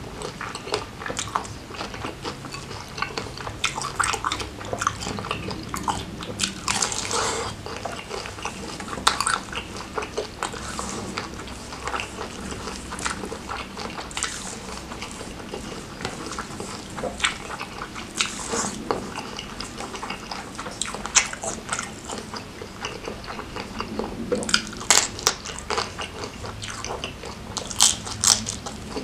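A person eating seafood in a spicy, saucy Padang sauce: irregular biting, crunching and wet chewing of crab and jumbo shrimp, with sharp cracks of shell, in a few louder clusters.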